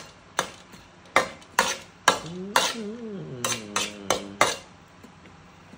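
A metal utensil clanking against a steel wok while food is stirred in it: about ten sharp knocks at an uneven pace, stopping near the end. A short wavering hum from a voice rises and falls in the middle.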